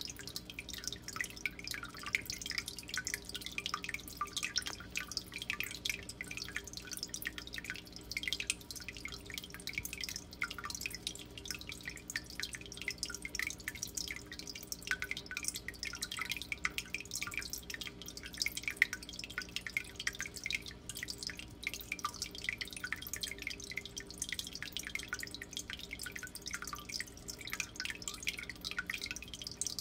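Water trickling and dripping steadily in many small droplets, over a faint low steady hum.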